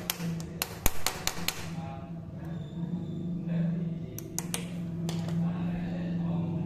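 Quick, light hammer taps on a pointed punch held against a broken bolt stub, driving it round to unscrew it: a rapid run of metallic taps in the first second and a half, then a few more about four to five seconds in.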